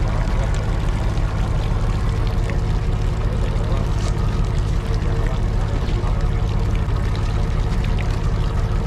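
Fishing boat's engine running steadily, a constant low drone with water rushing and sloshing over it.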